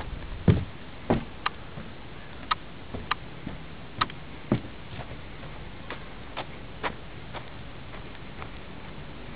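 Footsteps of a person walking, a sharp step roughly every half second, growing sparser near the end.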